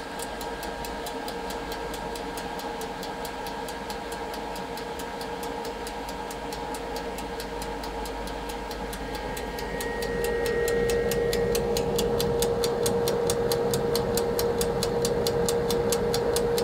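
Cooling fan of a VTOMAN FlashSpeed 1500 power station running hard under a near-1500 W load, a steady loud whir that gets louder about ten seconds in, with a steady whine joining it. Through it runs a fast, even ticking, about four ticks a second, typical of a toaster oven's wind-up dial timer.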